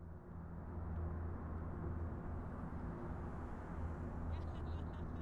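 Car engine idling, heard from inside the cabin as a steady low hum that fades in over the first second. A quick run of faint high clicks comes near the end.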